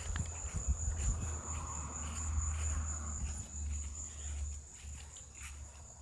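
Insects trilling in one steady, unbroken high-pitched tone over a low rumble on the microphone, with a few soft knocks in the first second.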